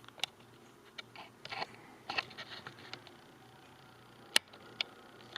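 Scattered small clicks, taps and short rustles of a plastic power connector's housing parts being handled and pulled apart after a screw is loosened, with a faint low hum underneath.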